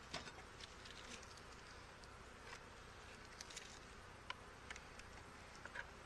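Honey bees buzzing faintly around an open hive, with scattered light clicks.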